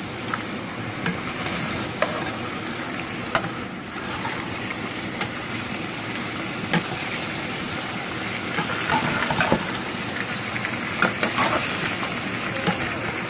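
Meat with chopped tomatoes and green peppers sizzling in a metal pot while being stirred, the utensil scraping and knocking against the pot in scattered clicks.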